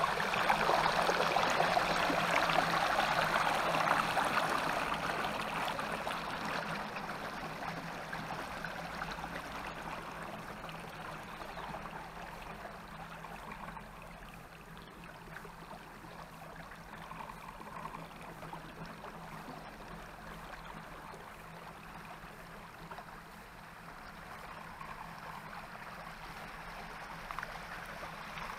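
Tyres of an ICE Adventure HD recumbent trike rolling slowly through shallow floodwater on a paved road: a steady rush and splash of water, loudest over the first few seconds and then easing to a lower, even level.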